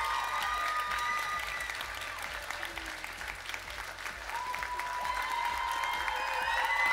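Audience applauding, easing off a little in the middle and swelling again toward the end.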